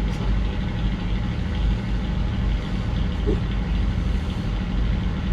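Steady low engine drone, a continuous rumble with no change in speed.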